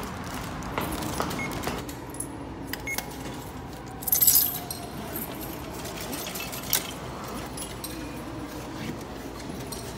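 Coins jingling in a short, loud burst about four seconds in, handled to pay at a subway ticket vending machine, with a few light clicks around it over a steady station background hum.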